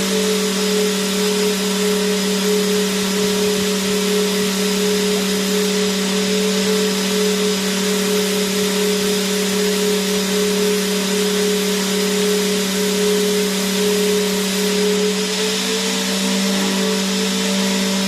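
Vacuum cleaner running steadily: a constant airflow hiss over a steady motor hum. The hum's pitch shifts slightly higher near the end.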